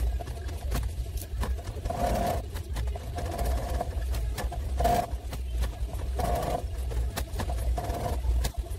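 Sewing machine stitching in short runs: a steady low motor hum with rapid clicks, and a louder burst every second or so as the machine speeds up.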